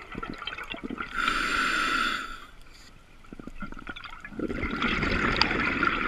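Scuba regulator breathing underwater: a hissing inhalation through the demand valve about a second in, a short pause, then the bubbling of an exhalation from about four and a half seconds.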